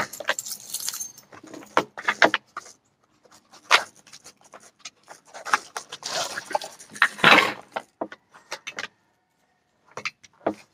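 Handling noise of a box of brass-cased .45 ACP ammunition being opened: irregular clicks and metallic rattling of the cartridges in their tray, thickest about six to seven seconds in, with a few more clicks near the end.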